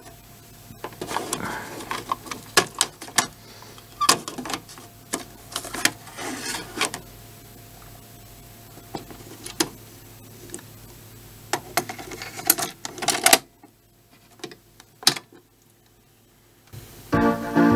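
Mechanical clicks and clunks from a 1981 Sony TC-FX4 cassette deck being worked by hand: transport keys pressed, cassette door operated and a tape loaded. About a second before the end, keyboard music starts playing from the tape.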